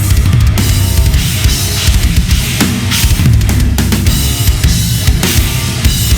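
Gretsch USA Custom drum kit, with kick, toms and chrome-over-brass snare, played hard along with a loud heavy rock backing track.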